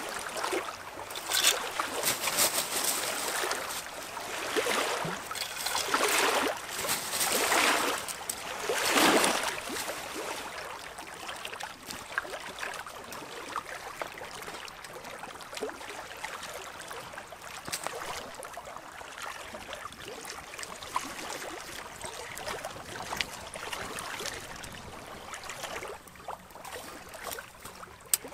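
Water washing against a rocky shore in swells about a second apart for the first ten seconds, then a softer steady wash with small crackles from a wood fire burning in a box stove.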